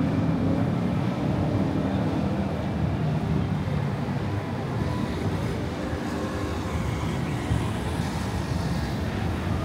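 Steady city street traffic noise from passing vehicles, mostly low-pitched and even, with no single event standing out.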